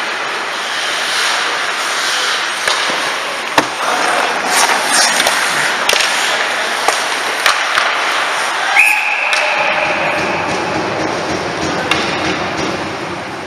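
Ice hockey play close to the goal: skates scraping on the ice with sticks and puck clacking, and a sharp crack about three and a half seconds in. About nine seconds in a referee's whistle sounds for roughly a second, stopping play.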